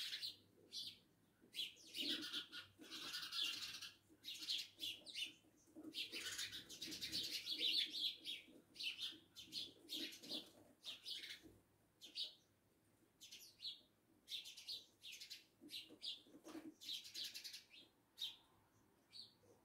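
A group of sparrows chattering: many short, high chirps overlapping, crowded together in two busy spells in the first half, then coming as sparser, separate chirps.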